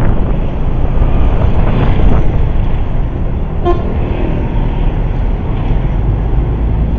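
Steady roadside traffic rumble from passing cars and motorbikes. A short vehicle horn toot sounds about halfway through.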